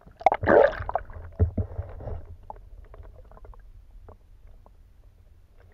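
Muffled water sound picked up through an underwater camera's housing: a splash about half a second in, then a low rumble with scattered small clicks and taps that slowly fades.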